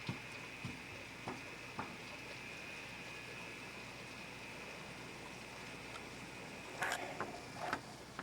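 Steady heavy rain hissing, with a few sharp knocks and thumps in the first two seconds and a louder cluster of them near the end.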